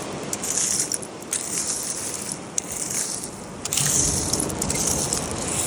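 Loose seashells clinking and crunching as hands dig through a shell pile, with a few sharp clicks.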